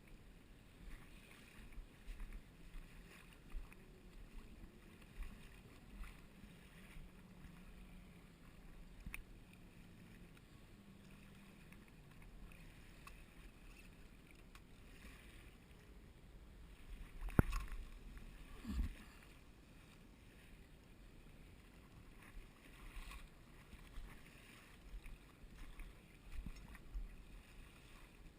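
Quiet shoreline ambience: wind gusting on the microphone over a faint low hum in the first half. Near the middle there is a single sharp click, then a thud about a second later.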